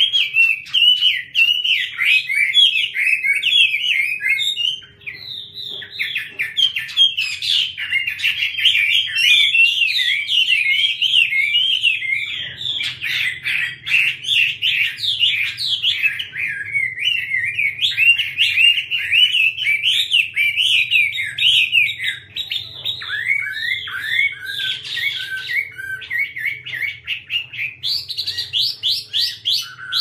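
Chinese hwamei (Garrulax canorus) singing a long, continuous run of rapid, varied notes with quick pitch sweeps, pausing briefly about five seconds in.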